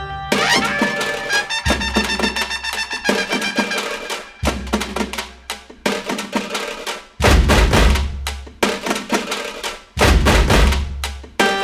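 Background music with pitched instrument notes over a prominent drum beat and heavy bass.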